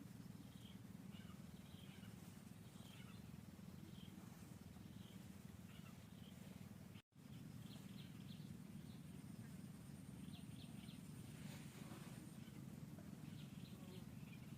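Near silence: faint background with a steady low hum and scattered faint short high chirps. The sound cuts out completely for a moment about halfway through.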